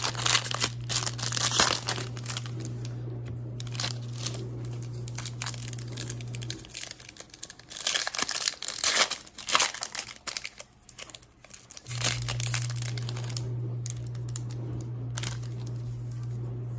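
Foil trading-card pack wrapper crinkling and tearing as it is opened and handled, in bursts. Underneath, a dishwasher hums steadily; the hum stops for about five seconds midway and then resumes.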